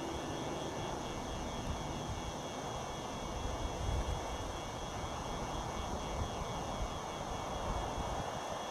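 Diesel locomotives of an approaching BNSF freight train, their engines running with a steady drone.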